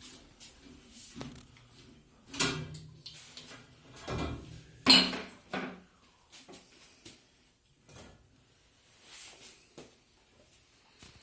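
A few clunks and scrapes of hard objects being handled and knocked together, the loudest about five seconds in.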